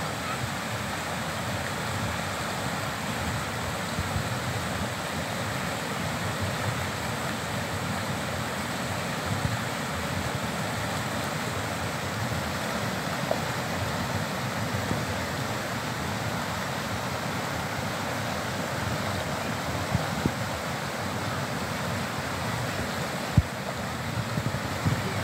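A river rushing over a low weir and around rocks: a steady, even rush of white water. One brief thump near the end.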